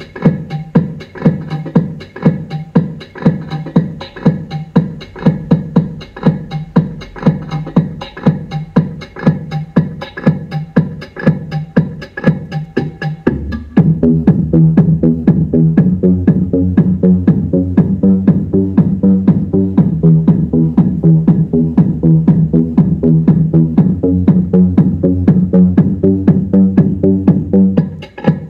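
Electronic dance music with a steady beat played through a homemade MDF Bluetooth speaker box. About halfway through, a deep, sustained bass line comes in and the music fills out.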